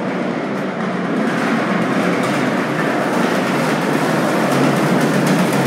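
Subway train running, a steady rumble with no distinct tone that slowly grows louder as it carries through a tiled station passage. A few sharp hits start near the end.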